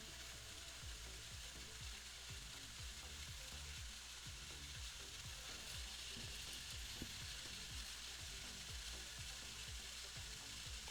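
Faint steady hiss of background noise with a low hum, dotted with light irregular taps.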